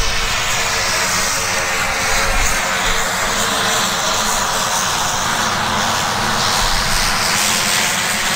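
Light single-engine propeller plane, a Cessna F172M Skyhawk with a four-cylinder Lycoming engine, running steadily and loudly as it rolls along the runway past the listener.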